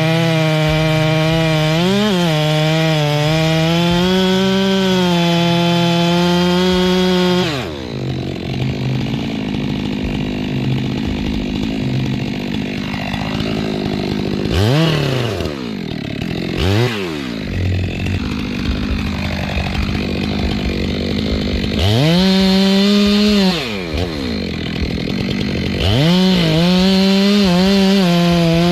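Stihl two-stroke chainsaw held at full throttle with small dips in pitch as it cuts wood, then dropping to idle about a quarter of the way in. It is blipped twice briefly, revved up for a second or two, and then held at full throttle again near the end.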